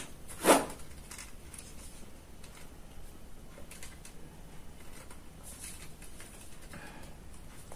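Handling noise from a wooden air-rifle stock of sonokeling (Indian rosewood) being turned over in the hands: one sharp knock about half a second in, then faint light taps and rustles.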